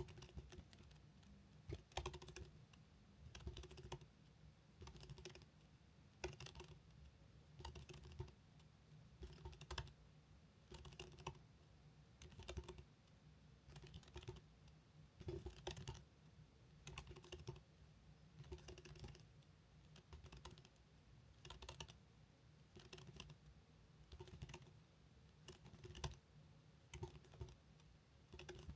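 Very fast typing on a computer keyboard, in short bursts of rapid keystrokes about every second and a half, each burst one word typed in a timed typing test.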